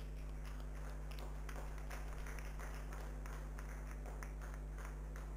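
Audience clapping in a hall, a dense scatter of sharp claps over a steady electrical hum.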